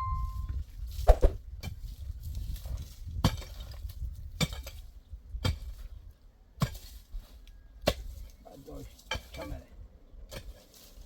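A series of sharp knocks or clicks, about one a second, irregular in strength.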